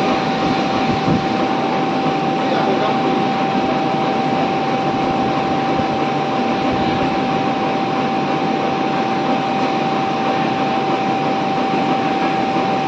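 Richpeace template sewing machine with laser cutter running: a steady mechanical rushing noise with a constant high whine over it.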